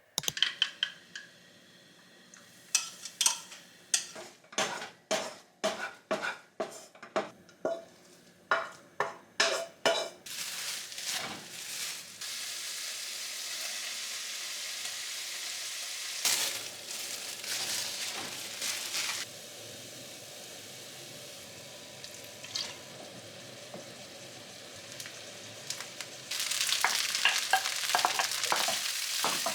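A quick run of sharp knocks, about two a second, for the first ten seconds, then food sizzling steadily in a frying pan, crackling louder near the end.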